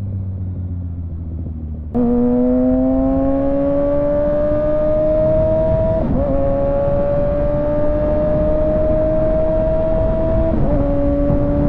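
Kawasaki ZX6R 636 inline-four engine and exhaust: revs falling off the throttle, then about two seconds in the throttle opens sharply and the revs climb steadily. The pitch dips briefly twice, about six and ten and a half seconds in, as it shifts up a gear.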